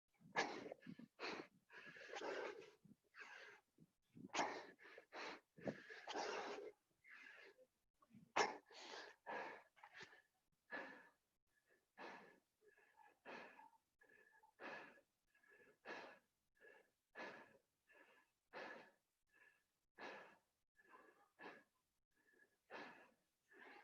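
Hard, rhythmic panting of a person exercising flat out doing burpees: quick breaths in and out, roughly one to two a second, heavier and longer in the first few seconds.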